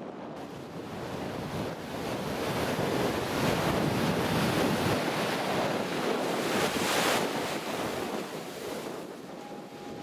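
Ocean surf washing up onto a sand beach, a steady rush of foam that swells to a peak about seven seconds in and ebbs again, with wind buffeting the microphone.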